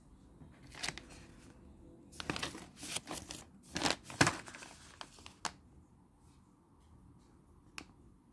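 Plastic Feline Greenies treat pouch crinkling and rustling as it is handled and turned over: several crackly bursts in the first half, loudest about four seconds in, then a single sharp click near the end.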